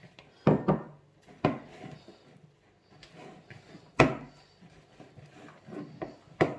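Hands kneading a stiff dumpling dough, with several sharp knocks as it is pressed and turned. The loudest knocks come about half a second and about four seconds in.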